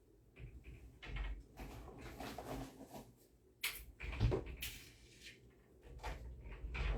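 Rummaging through furniture: cupboard doors and drawers being handled, with irregular knocks and clacks. The sharpest come a little after halfway through.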